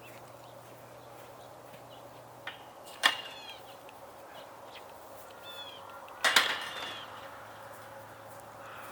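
Two sharp clacks about three seconds apart, the second the louder, each followed by a short squeaky ringing.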